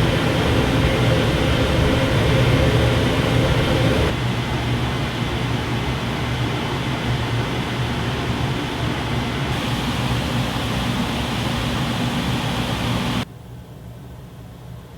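Kitchen range hood fans running, played one recording after another: a steady whooshing fan noise with a hum. The noise changes abruptly about four seconds in, then drops suddenly to a much quieter hood near the end.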